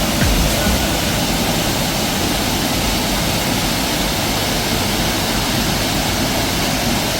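Steady rush of falling water, a dense even hiss with no rhythm or pitch.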